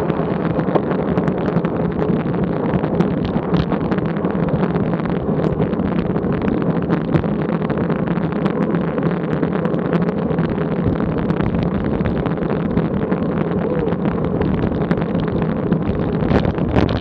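Wind rushing over a bike-mounted camera's microphone at about 22 mph, with road bike tyre hum and small rattles from the asphalt. A brief swell near the end as a car passes close alongside.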